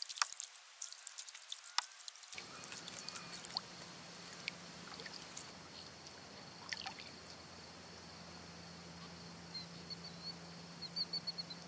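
Water dripping and trickling at a kayak: a quick patter of drips for the first two seconds, then only scattered drips over a faint steady hum. Near the end come two quick runs of short, high chirps.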